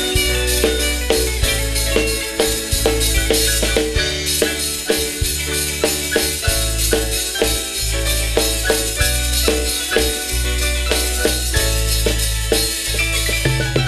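Instrumental band music: electronic keyboard over a steady drum and percussion beat.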